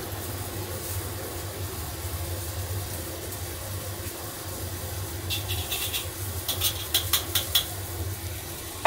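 Steady low hum with a simmering steel wok of sauce on a gas stove. A little past the middle comes a quick run of light metal clicks as a metal spoon taps and stirs in the wok.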